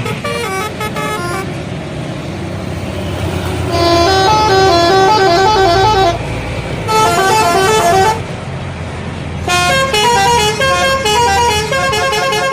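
Indonesian bus telolet horn playing quick, stepping multi-note melodies in four bursts: a short one at the start, then longer phrases from about 4 to 6 s, 7 to 8 s and from about 9.5 s onward. A low rumble from the bus engine and traffic runs underneath.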